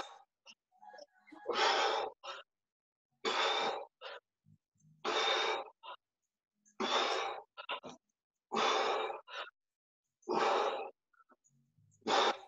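A person breathing heavily into a video-call microphone during kettlebell swings: a loud, noisy breath out about every one and a half to two seconds, each followed by a short breath in.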